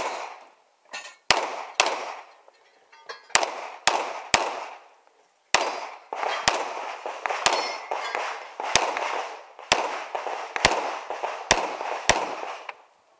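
Semi-automatic pistol firing about fourteen shots in quick pairs and short strings, each a sharp crack with a short ringing tail, heard close up from the shooter's position.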